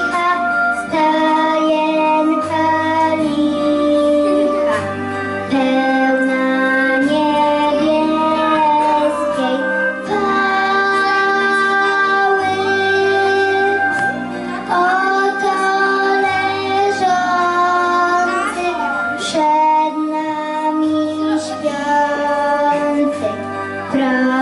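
A young girl singing a Christmas lullaby-style song solo into a microphone, holding long notes, over an instrumental accompaniment with a bass line that changes every second or two.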